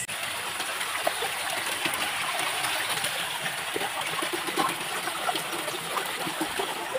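Creek water running, a steady rushing hiss with scattered small splashes and clicks.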